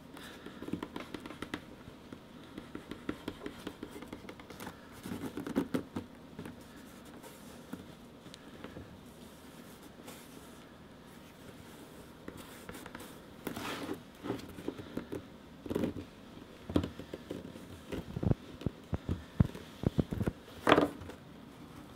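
Bone folder rubbing and pressing thick vegetable-tanned leather into a contact-cemented seam: a stream of small scrapes and ticks. In the last several seconds come sharper knocks from handling the leather piece, the loudest near the end.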